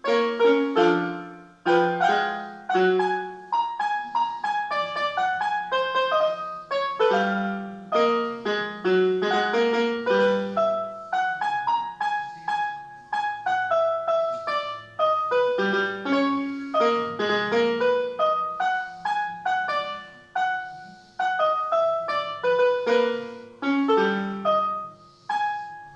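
Solo piano playing: a melody over lower bass notes, each note struck and then dying away, in a continuous flowing passage.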